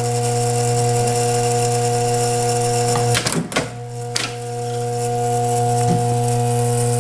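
Electric vibratory bowl feeder of a rivet machine humming steadily. About three seconds in the hum dips for roughly a second, with a few sharp knocks, then carries on.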